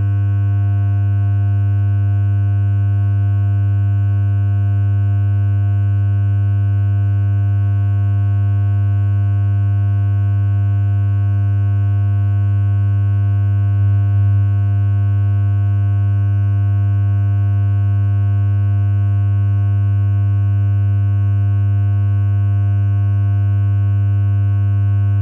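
Electric hair clippers running: the motor gives a steady, unbroken low buzz at a constant pitch.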